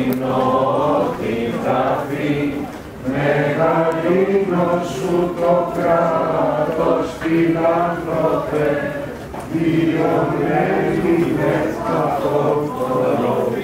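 A crowd of Orthodox worshippers singing a Byzantine hymn together, men's and women's voices in long sustained phrases with brief breaks between them.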